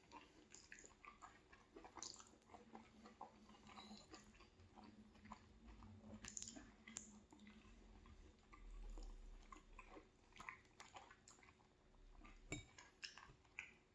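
Faint chewing of soft orecchiette pasta in tomato sauce: scattered small wet mouth clicks, quiet enough that the dish barely makes noise.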